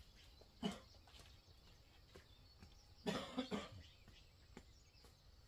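A person coughing: one cough, then a quick run of about three coughs a few seconds later.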